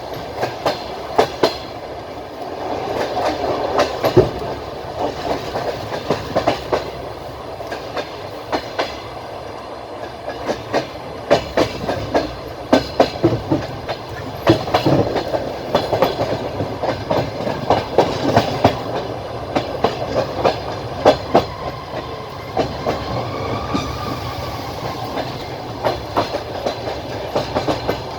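Passenger train carriage running at speed, its wheels clicking and knocking over the rail joints in an uneven run of clacks over the steady rumble of the ride.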